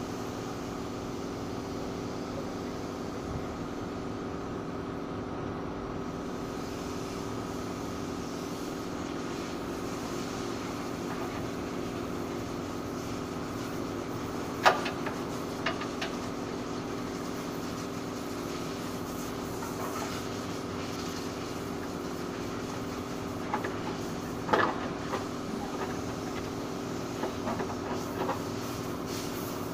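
A steady machine hum, with sharp clicks and knocks from plastic trim and clips being pried off a car's front end: one loud snap about halfway, a second a second later, and a cluster of them in the last few seconds.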